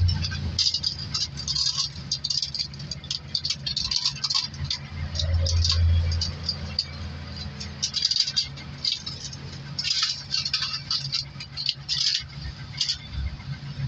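Aluminium foil crinkling and crackling in short, irregular bursts as it is pressed and crimped around the rims of oval flan molds, over a steady low hum.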